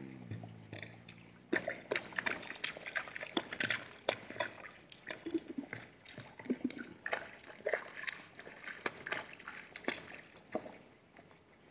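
Hartmann's mountain zebras drinking and stepping in shallow water: irregular slurps, sloshes and small splashes, dying away near the end.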